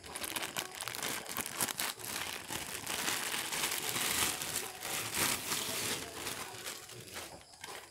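Clear plastic packaging crinkling and rustling as it is handled. The noise is steady with many small crackles, loudest in the middle and tailing off near the end.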